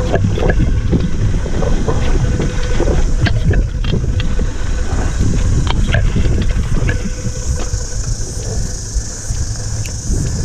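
Mountain bike rolling fast down a dirt trail: wind buffeting the chest-mounted action camera's microphone over a low tyre rumble, with frequent sharp clacks and rattles as the bike goes over bumps.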